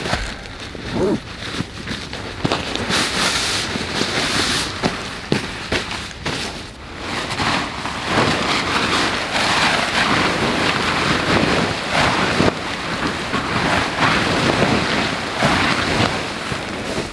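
Hilleberg Nallo tunnel tent's nylon fabric rustling and crinkling as it is pulled from its stuff sack and shaken out, with many small clicks and knocks, busier from about two seconds in.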